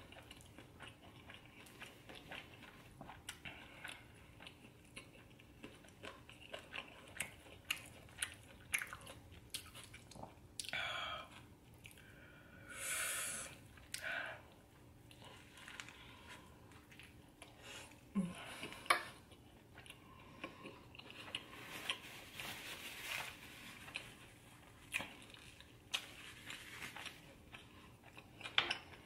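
A person chewing and biting food close to the microphone, with many small wet mouth clicks. Two longer noisy sounds of about a second each come near the middle.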